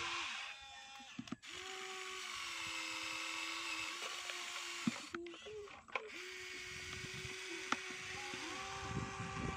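Small electric gear motors of a Huina remote-control toy excavator whining as its boom and arm move, stopping and starting again about a second in and around the middle, with a few sharp clicks of the gears.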